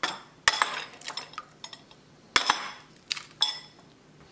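Two eggs cracked on the rim of a cut-glass bowl: a series of sharp knocks, each with a brief glassy ring. The loudest come about half a second in and again at about two and a half seconds, with smaller clicks between.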